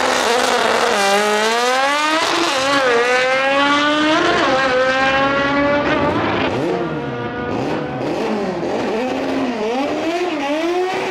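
Honda CRX drag car launching and accelerating hard down the strip, its engine climbing in pitch through the gears with two quick shifts. It then fades and wavers as the car pulls away down the track.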